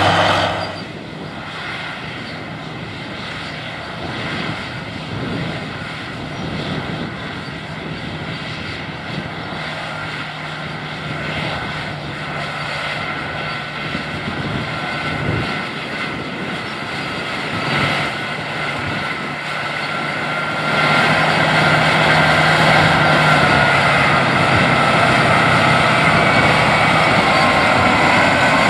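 The Caterpillar 3208T turbocharged V8 diesel of a White 4-225 Field Boss four-wheel-drive tractor runs steadily under load while pulling a chisel plow through the field. The engine gets louder about three quarters of the way through and stays louder.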